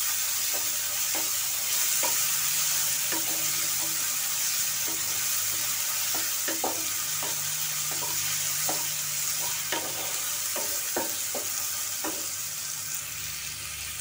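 Onion, ginger and garlic sizzling steadily as they brown in hot oil in a pan. A wooden spatula scrapes against the pan with short, irregular strokes as it stirs.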